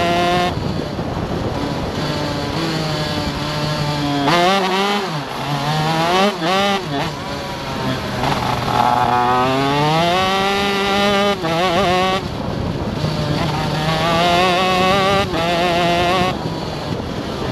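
Stock Honda 125cc two-stroke shifter kart engine, heard from onboard, revving up through the gears and dropping sharply in pitch several times on braking and downshifts, with a long climb in pitch about eight to ten seconds in.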